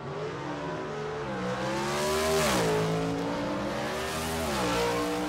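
A motorcycle engine accelerating through the gears: its pitch climbs, drops sharply at an upshift about halfway through, then climbs again and drops at a second shift near the end.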